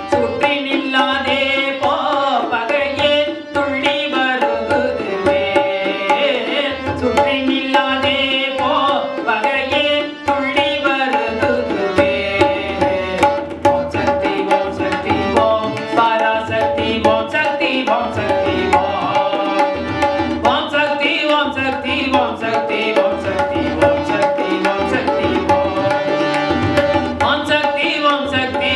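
A man sings a melody, accompanying himself on a harmonium whose reeds hold a steady drone. A pair of tabla keeps a continuous rhythm, with deep bass-drum strokes repeating under the melody.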